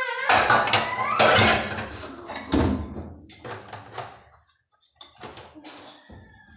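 Water running hard into a sink for about two seconds, then dishes and cups knocking and clinking against the steel basin as they are washed.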